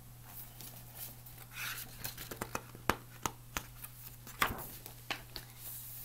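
A hardcover picture book being handled and its page turned: paper rustling and a string of sharp clicks and knocks.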